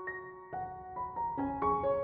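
Gentle background music: a slow melody of single sustained notes, a new one every half second or so.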